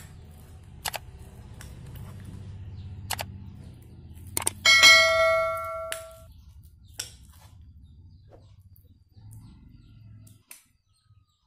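A metal spoon stirring slime in a glass dish, tapping the rim a few times. About four and a half seconds in it strikes the dish hard, giving a bell-like ring that fades over a second and a half. A low rumble underneath stops near the end.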